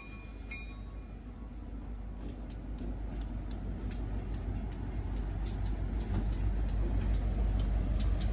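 Diesel freight train rumbling, growing steadily louder, with a regular light ticking about three times a second.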